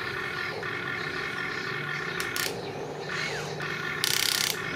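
Radio-controlled construction model's electric motors whining steadily, with a short burst of hiss about four seconds in.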